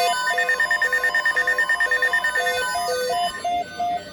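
Electronic alert tones: a repeating pattern of beeps alternating between a lower and a higher note, with a fast pulsing beep over it for the first two and a half seconds.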